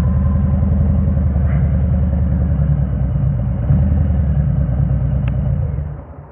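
Harley-Davidson Road King's V-twin engine idling with a low, steady rumble, then cutting off about six seconds in as it is shut down.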